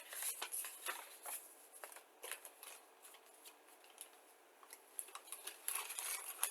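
Small plastic model-kit parts and packaging being handled, with light irregular clicks and rustling. It is busier at first, quieter in the middle and picks up again near the end.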